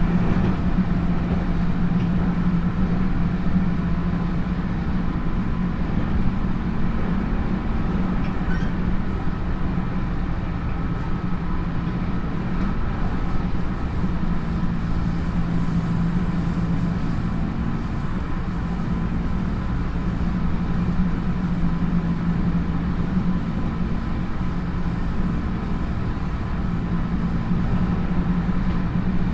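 Running noise inside a JR 311 series electric train's motor car at speed: a steady rumble of wheels on rail with a low hum from its DC traction motors and gearing, holding an even speed.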